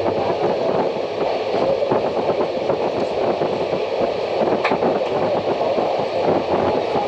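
Passenger train running, heard from its open doorway: a steady rumble with fast, continuous rattling from the wheels and coach, and one sharper click a little past halfway.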